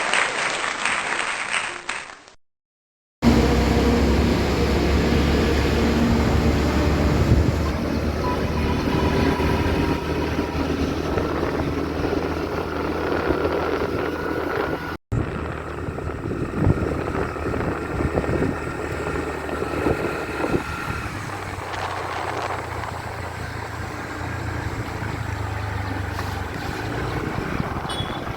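A burst of applause-like noise fades out in the first two seconds, followed by a motorcycle running steadily on the road, with wind and road noise over the engine's low hum, broken by a brief cut about halfway.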